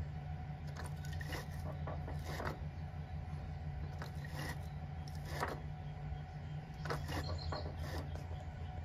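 Arbor press bringing the jaws of a sheet-metal shrinker-stretcher down, with scattered light metal clicks and knocks from the press and jaws. A steady low hum runs under them.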